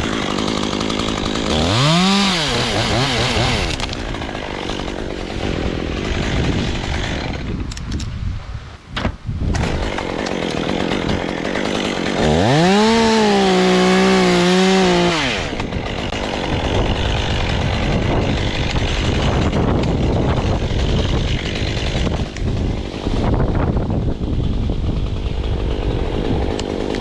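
Stihl chainsaw revved to full throttle twice: a quick blip about two seconds in, then a longer high-speed run of about three seconds starting around twelve seconds in, with a lower running sound between.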